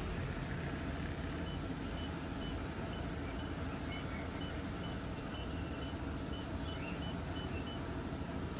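Suzuki Access 125's single-cylinder fuel-injected engine idling steadily, at about 1,500 to 1,750 rpm.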